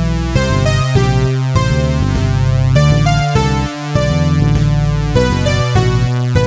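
Electronic synthesizer music: held synth chords and a steady bass, the notes changing about every half second.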